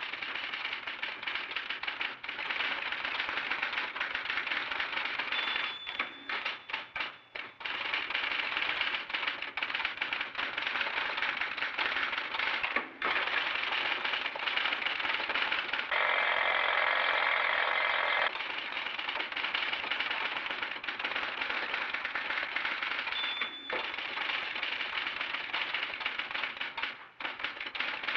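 Dense, rapid mechanical clattering like a fast typewriter or rattle, with short breaks around six to seven seconds in and again near thirteen seconds, and a louder, thicker stretch around sixteen to eighteen seconds. A brief high beep sounds twice, near six seconds and again about twenty-three seconds in.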